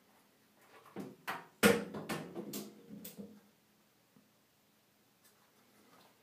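A Siamese cat's claws and paws knocking and scrabbling on the metal frame of a sliding shower door as it hauls itself up onto the top rail: a burst of sharp knocks and scrapes lasting about two seconds, the loudest knock about a second and a half in, then only faint ticks.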